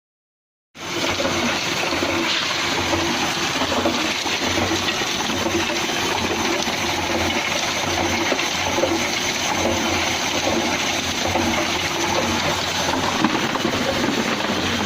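Tube ice machine running: a steady rush of circulating water with a low pump or motor hum. It starts abruptly about a second in.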